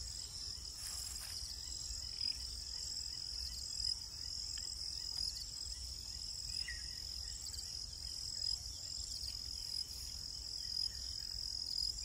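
Steady, high-pitched chorus of crickets and other insects, with a low rumble underneath and one brief, faint chirp a little past halfway.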